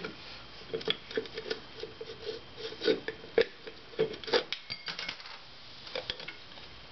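Irregular light metallic clicks and clinks, a few ringing briefly, as the alternator rotor of a 1995 Harley-Davidson Heritage Softail is worked back onto its shaft over the stator.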